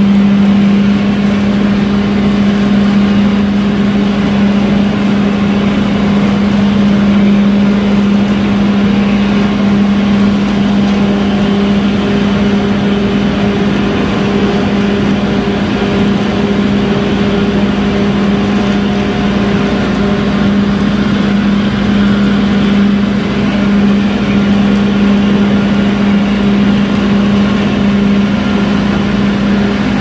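AJAX concrete mixer running, its engine and drum drive giving a loud, steady drone with a strong constant hum.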